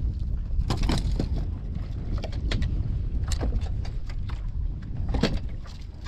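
Steady wind rumble on the microphone, with a scatter of sharp knocks and clicks as the fishing gear and catch are handled in the boat, and cloth brushing against the camera.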